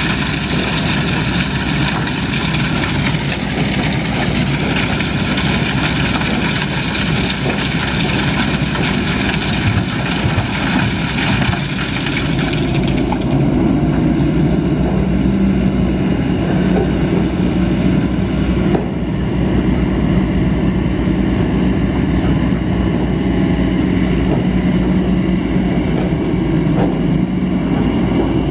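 Kobelco hydraulic excavator's diesel engine running steadily under load. For about the first half, rocks and gravel clatter and rattle as they pour from the bucket into a steel dump-truck bed; that stops about halfway through, leaving the engine running alone.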